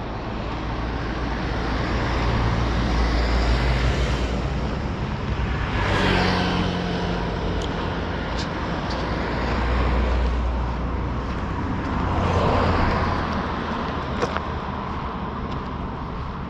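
Road traffic: cars passing one after another over a steady low rumble. About four pass-bys swell and fade, the one about six seconds in dropping in pitch as it goes by.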